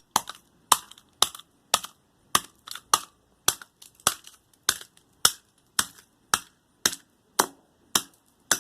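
Hammer blows on a metal motor yoke, about sixteen sharp strikes at an even pace of a little under two a second, each with a short metallic ring, knocking the yoke apart to free its copper windings.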